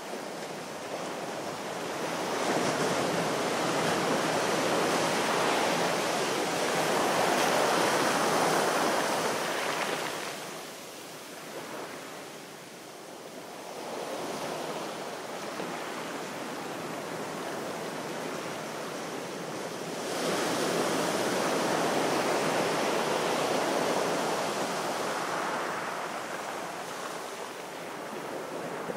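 Sea waves washing onto a shore: a surge of rushing water that builds for several seconds, eases off about ten seconds in, then builds again about twenty seconds in.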